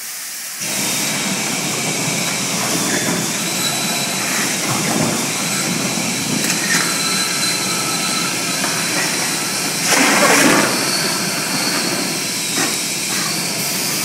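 IVAC PV-500 industrial vacuum starting up and running, a loud steady rush of air drawn in through its suction hose as it is passed over objects on the floor. About ten seconds in there is a louder surge.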